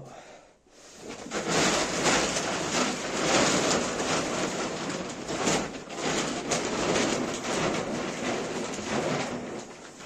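Dry animal feed being mixed by hand, a steady dense rustling and crackling that starts about a second in and eases off near the end.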